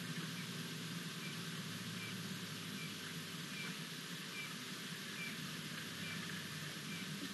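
Outdoor wildlife-camera ambience: a steady hiss with a low hum underneath, over which a small animal gives one short, high chirp at an even pace, about once every 0.8 seconds.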